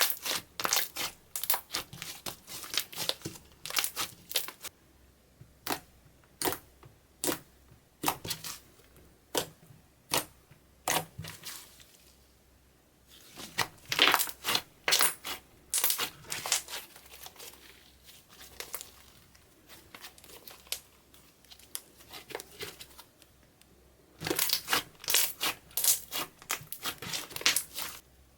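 Crisp clicks and crackles from eyeshadow and clear slime being worked by hand, coming in quick runs with sparser stretches between them and a dense last burst near the end.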